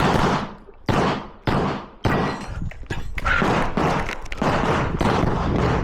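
Handgun shots fired in quick succession, roughly half a second apart, each with a long echoing decay, with a short lull before another shot near the end.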